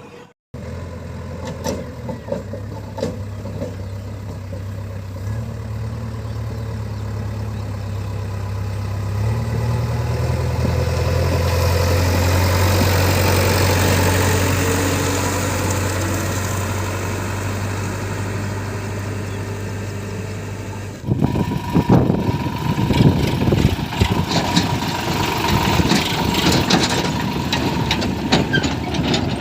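Diesel engine of heavy machinery running steadily, its pitch stepping up a little a few times. About two-thirds of the way through, the sound changes abruptly to a louder engine run with rapid rattling knocks.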